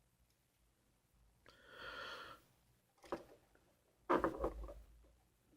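Faint, scattered handling sounds close to the microphone: a short breath through the nose about two seconds in, a small click about a second later, and a brief rustling thump a little after four seconds.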